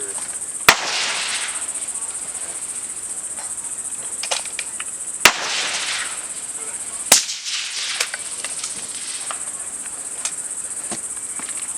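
Three suppressed centerfire rifle shots, one about a second in and two more about five and seven seconds in, each followed by a trailing echo, with fainter clicks between them. A steady high-pitched insect buzz runs underneath.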